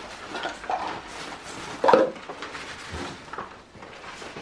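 Puppies playing among crinkly paper, plastic bottles, cups and tins: irregular rustling, crinkling and light clattering, with one louder knock about two seconds in.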